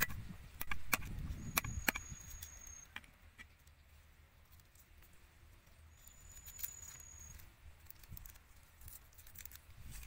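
Garlic cloves being peeled by hand on a wooden chopping board: a few sharp knocks in the first two seconds, then soft papery crackles and clicks of the skins coming off. A thin high whistle, held for about a second, sounds twice.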